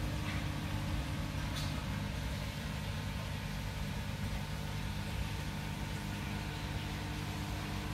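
Steady low machine hum, with several fixed low tones that do not change.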